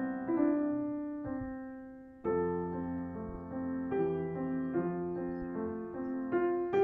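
Background piano music: slow, sustained notes that die away almost to nothing about two seconds in before a new chord comes in.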